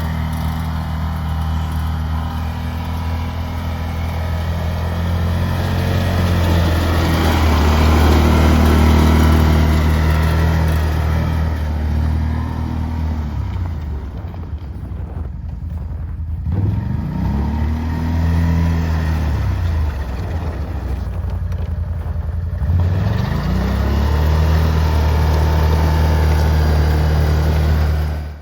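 Can-Am Outlander 650 ATV's V-twin engine running steadily, revving up and dropping back down several times in the second half. It stops abruptly at the end.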